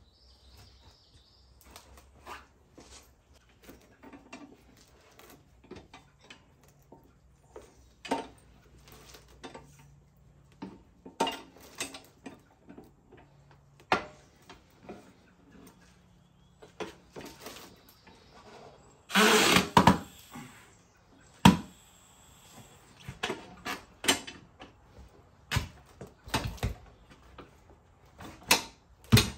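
Harbor Freight manual tire changer being worked by hand: irregular clanks and knocks of the steel bar against the machine and wheel, with rubber scraping as the bar is levered around the tire bead. A loud cluster of scraping and knocking comes about two-thirds of the way in.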